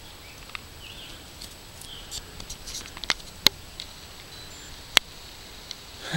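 A hiker's footing on a rocky, leafy trail: scattered sharp clicks and snaps, the two loudest about three and a half and five seconds in, over a quiet woodland background with faint short high chirps.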